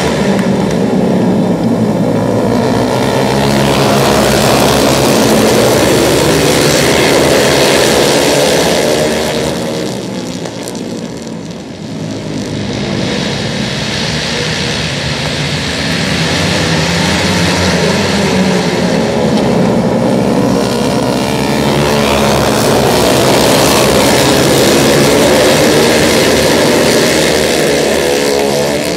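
A pack of flat track racing motorcycles running at full throttle around a dirt oval. The engine sound swells as the pack passes close, fades about ten seconds in as they go down the far side, and builds again as they come round on the next lap.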